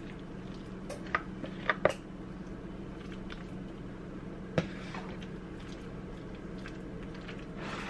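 Wet, creamy pasta mixture squishing as it is scraped out of a plastic container into a ceramic baking dish with a spoon. A few sharp clicks of the spoon against the container and dish come through, the loudest just under two seconds in, over a steady low hum.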